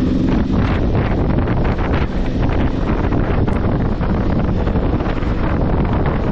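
Heavy, steady wind noise buffeting the microphone on a moving motorcycle, with the Aprilia Tuareg 660's parallel-twin engine running underneath.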